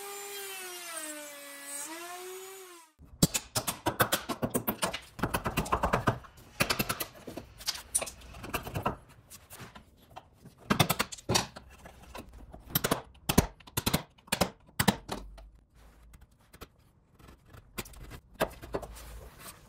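A plunge router's motor whines while cutting into hardwood, its pitch sagging briefly under load, and stops abruptly about three seconds in. It is followed by a long string of sharp taps and knocks on wood, in quick irregular runs.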